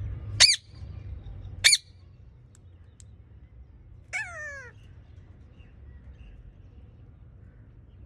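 Rose-ringed parakeet giving two short, sharp screeches a little over a second apart, then a longer call that falls in pitch a few seconds in.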